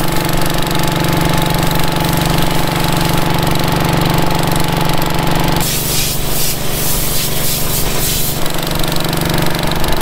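Combine engine running steadily, with a louder hissing rush from about six to eight and a half seconds in.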